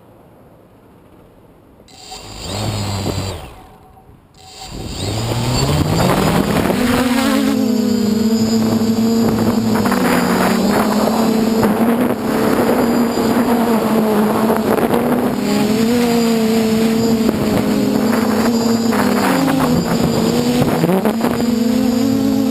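DJI F450 quadcopter's motors and 8-inch propellers: a short burst about two seconds in, then the motors spin up with a rising pitch and settle into a steady hum that wavers slightly as the throttle changes in flight.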